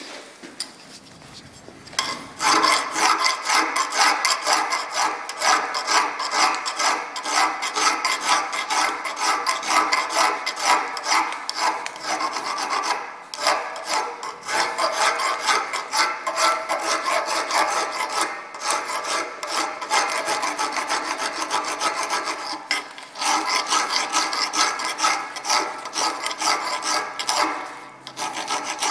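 A round file rasping back and forth inside the eye of a steel cross pein hammer head clamped in a vise, in quick repeated strokes that start about two seconds in, with a few brief pauses.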